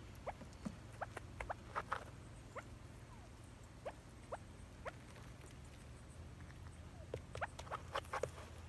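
Quail and chukar partridges peeping: a scattered string of short, rising chirps. Around two seconds in and again near the end come bursts of quick, scratchy clicks from a bird scratching in a pan of sand.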